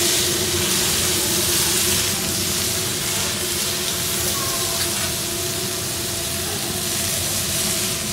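Vegetables sizzling steadily on a hot flat-top griddle as a metal spatula stirs them, with a steady hum underneath.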